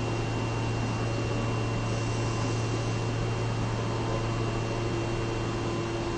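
Steady hum and hiss of an electric subway train standing at an underground platform, with a low drone and a faint high whine from its running equipment.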